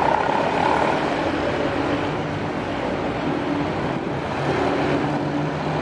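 Road traffic going past: a continuous rush of engines and tyres from motorcycles, cars and a small box truck, with a low steady engine hum coming up in the second half.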